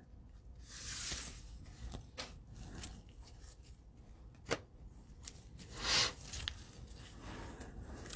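Faint rustling of trading cards and pack wrappers being handled by gloved hands, with a sharp tap about four and a half seconds in and a louder swish near six seconds.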